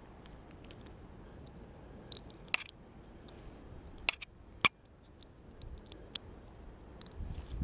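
A few sharp clicks and snaps, the loudest about four and four and a half seconds in, as fingers work a fishing hook out of a small fish's mouth.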